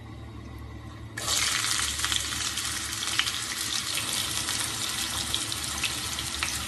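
Chopped onions sizzling in hot oil tempered with mustard and cumin seeds. The hiss starts suddenly about a second in and holds steady, with scattered crackles.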